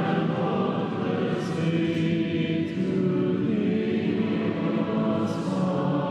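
A choir singing a hymn in long, slow held notes, with several voice parts sounding together and short sung 's' sounds about a second and a half, two seconds and five seconds in.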